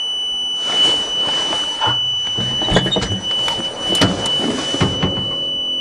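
A steady high-pitched whine comes on with the ignition and holds unchanged, taken for the dump truck's electric fuel pump switching on and running. A few short rustling noises sound over it.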